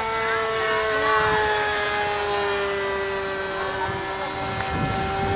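Electric motor and propeller of a radio-controlled Cessna model in flight, a steady whine whose pitch drifts slowly down as the plane passes.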